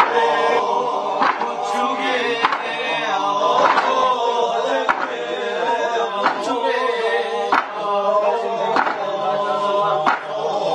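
Music of male voices singing in a chant, held over a slow, even beat of percussion hits about once every second and a quarter.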